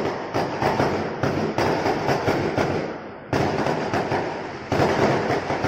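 Fireworks going off in rapid succession: a run of sharp bangs and crackle, about three a second, with fresh, louder volleys starting about three seconds in and again near the end.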